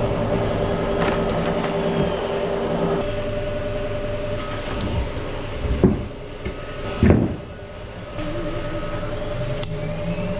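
Steady hum of running shop machinery, made of several even tones. Two loud thumps come about six and seven seconds in, and the hum drops away briefly after the second before coming back.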